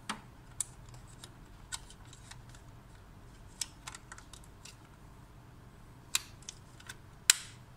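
Scattered light plastic clicks and taps as the clip holder cover is fitted back onto an Epson L1800 print head carriage, ending in a sharper click about seven seconds in as a part snaps into place.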